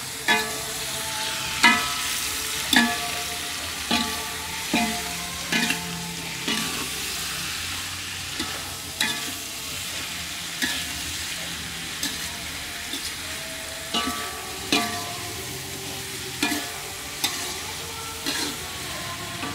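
Metal ladle striking and scraping a metal wok about once a second, each clank ringing briefly, as leafy greens are stir-fried over a steady sizzle.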